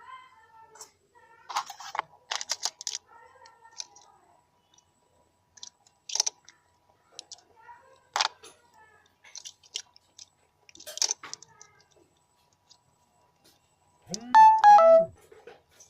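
Scattered clicks, taps and scrapes of small electronic parts, wires and tools being handled on a workbench. Near the end come two short, loud pitched calls, each rising then falling.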